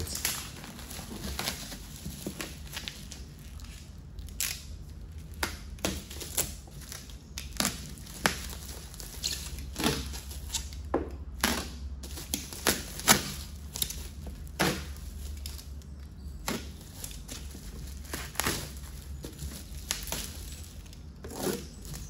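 Bubble wrap and plastic film crinkling and rustling as they are pulled open off a box, with irregular sharp crackles.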